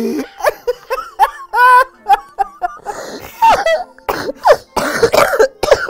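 A man laughing helplessly and loudly. It opens with a long drawn-out howl that falls in pitch, then goes on in uneven bursts of squeals, wheezes and gasping breaths.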